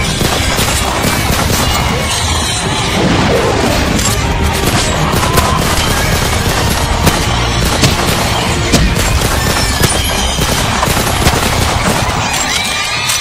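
Loud music with scattered sharp, gunshot-like bangs from a staged battle reenactment. The bangs come roughly every second from about five seconds in.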